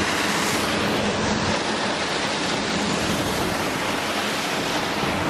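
Steady rush of splashing water from a large outdoor fountain jet.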